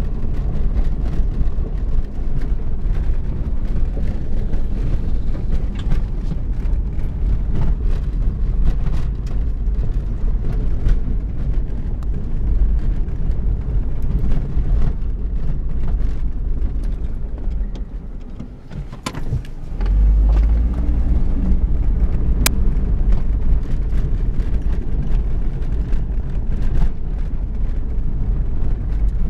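Toyota RAV4 driving: a steady low rumble with scattered clicks and knocks. The rumble fades briefly about two-thirds of the way through, then comes back stronger.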